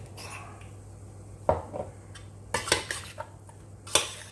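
Kitchen utensils knocking and clinking against cookware, about five sharp separate clinks, the loudest near the end.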